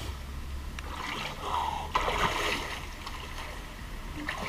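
Splashing of a person wading through shallow water in waders, loudest about two seconds in, over a steady low rumble.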